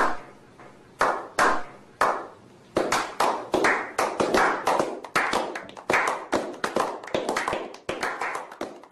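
A slow clap by a small group: single hand claps about a second apart at first, quickening from about three seconds in into faster, overlapping claps several times a second.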